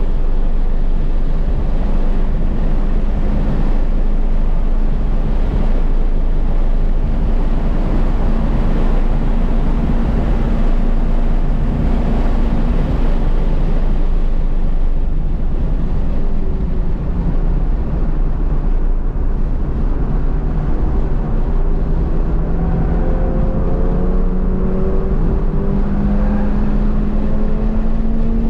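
Toyota GR86's 2.4-litre flat-four engine heard from inside the cabin at speed, under heavy wind and road rumble. The engine note holds steady for a while, then climbs gradually in pitch over the last several seconds as the car accelerates.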